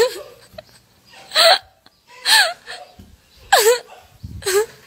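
A young woman's voice giving about five short, high-pitched cries about a second apart, each a quick dip and rise in pitch, hiccup-like and breathy.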